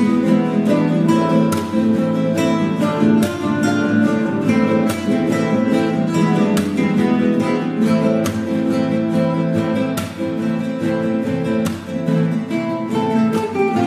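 Background music led by a strummed acoustic guitar, with sustained chords and a steady strumming rhythm.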